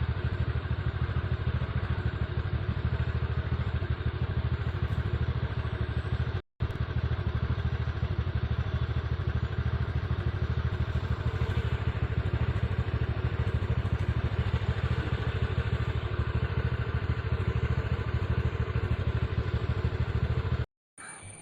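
Steady rumble of a vehicle on the move, mixed with wind noise. It cuts out briefly about six and a half seconds in, then runs on.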